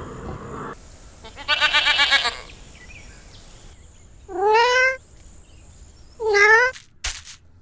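Domestic cat meowing: two drawn-out meows, about four and a half and six and a half seconds in, each rising then falling in pitch, after a shorter wavering call about two seconds in.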